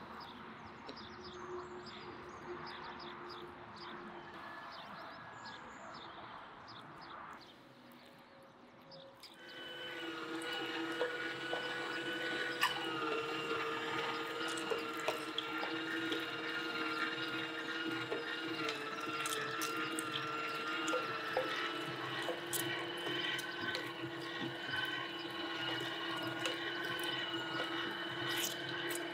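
Electric meat grinder starting up about nine seconds in and running steadily, a motor whine with several held tones that waver slightly in pitch as meat is minced through the plate, with small clicks. Before it starts there is a quieter stretch of faint background noise.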